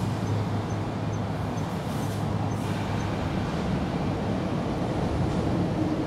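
A steady low rumble of outdoor background noise, with faint high ticks about twice a second during the first three seconds.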